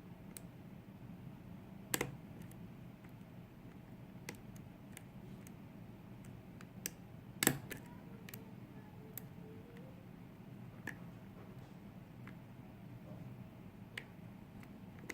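Light, scattered metallic clicks from a lock pick and tension wrench working the pin stacks of a lock cylinder, with two sharper clicks, one about two seconds in and one about halfway through.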